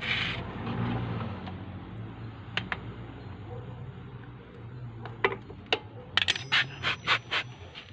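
Metal parts and tools clinking and tapping during brake shoe work on a tuktuk's drum brake. A few single clinks come first, then a quick run of sharp, ringing clinks near the end.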